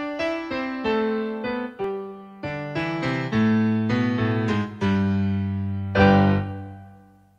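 Intro music on piano-like keyboard: a run of notes, with a bass line coming in about two and a half seconds in. A loud final chord about six seconds in dies away to silence.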